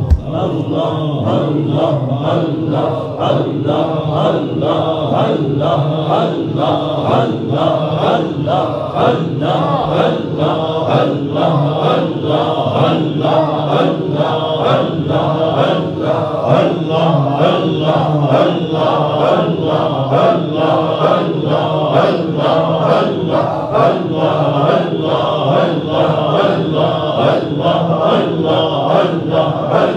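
Men's voices chanting dhikr together in a steady, rhythmic unison chant.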